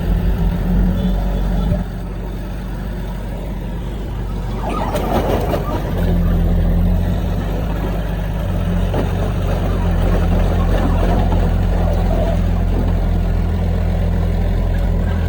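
Diesel engine of heavy earthmoving machinery running under load. It drops back about two seconds in and builds up again around six seconds. A burst of rattling and scraping comes at about five seconds.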